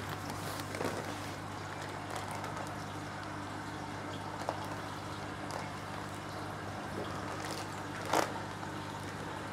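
Steady hum and trickling water of aquarium pumps and filtration in a fish room, with a brief plastic-bag rustle about eight seconds in.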